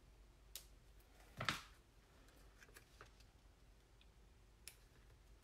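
Near silence broken by a few soft clicks and taps of paper and card being handled, the loudest about a second and a half in, as a vellum cut-out is pressed down onto glue dots.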